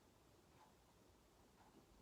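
Near silence, with a faint tick about once a second.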